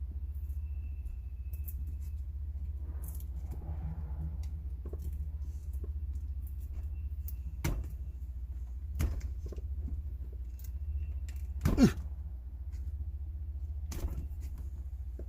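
Scattered clicks, clanks and knocks of parts and tools being handled, the loudest about twelve seconds in, over a steady low hum.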